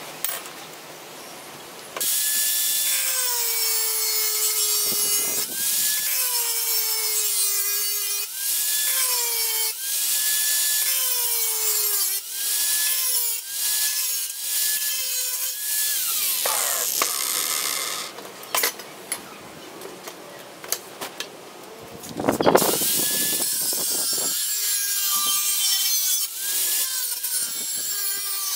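Angle grinder with a thin cutting disc cutting the steel of an old circular saw blade in repeated short passes. The motor's whine drops in pitch each time the disc bites into the metal, under a loud grinding hiss. The cutting starts about two seconds in, pauses for a few seconds about two-thirds of the way through, then starts again.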